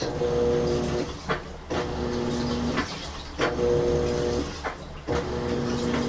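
Old top-loading washing machine agitating a load of blankets: the motor hums in pulses of about a second, driving the wash one way and then the other, with a short pause and a click between pulses, about four times.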